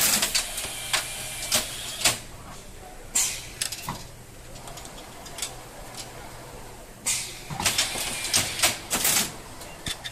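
Automatic PCB loader and conveyor with pneumatic cylinders running: irregular mechanical clacks and knocks, short hissing bursts of air, and a faint steady hum.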